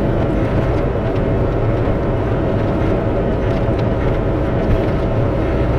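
Bobcat E42 mini excavator's diesel engine running steadily under working load as it digs and pulls dirt.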